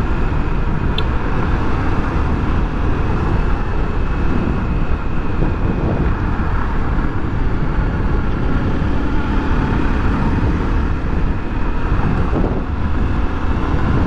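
Honda XRE300's single-cylinder engine running steadily while the motorcycle is ridden at road speed, under a heavy, even rush of wind and road noise, with one brief click about a second in.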